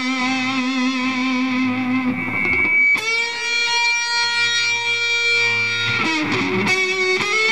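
Stratocaster electric guitar played through a Shrimp Pistol Stun germanium fuzz pedal. A fuzzed note is held with vibrato, then a higher note is struck about three seconds in and sustains steadily. Near the end it breaks into a few shorter notes.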